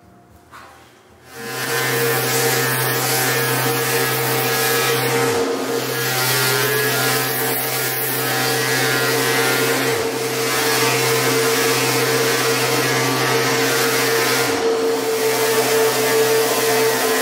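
Electric random orbital sander with a dust-extraction hose running steadily on a wooden chair frame. It starts about a second in, with a few brief dips along the way.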